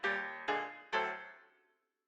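Background music: three keyboard chords struck about half a second apart, each ringing out and fading, the last dying away to silence.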